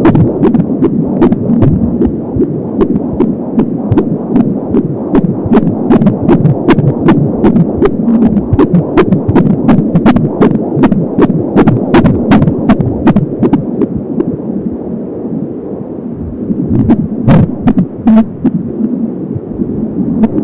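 Fetal heartbeat at 26 weeks of pregnancy heard through an Angelsound handheld fetal Doppler: a fast, regular pulsing of about 170 beats a minute over a steady hum, with scattered sharp clicks.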